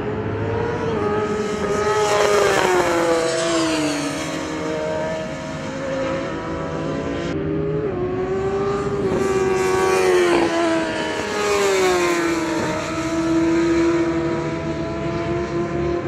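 Racing sport motorcycles at high revs going past on a circuit. The engine pitch falls as bikes pass, about three seconds in and again about ten seconds in.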